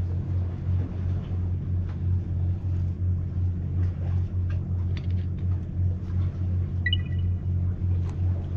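Steady low engine rumble, pulsing evenly a few times a second, with scattered faint clicks and a brief high squeak about seven seconds in.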